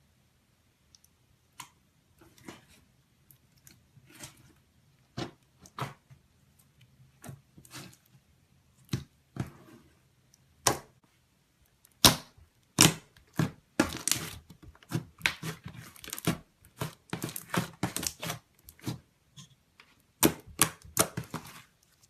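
Slime being squished and worked, giving irregular sticky pops and crackles that come thicker and louder from about halfway through, then stop just before the end.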